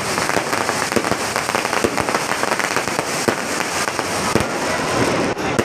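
Fireworks display going off: a dense, continuous run of bangs and crackles.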